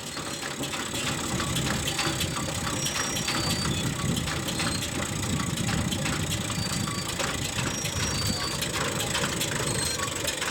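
Farm machinery running with a steady hum and a fast, irregular crackle of clicks.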